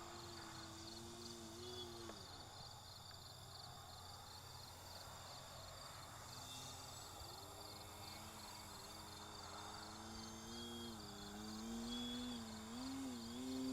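RC Extra 300 model plane's motor and propeller droning faintly, fading out in the first two seconds, then returning from about six seconds in, growing louder and wavering in pitch as it manoeuvres. Crickets chirp in a steady rhythm throughout.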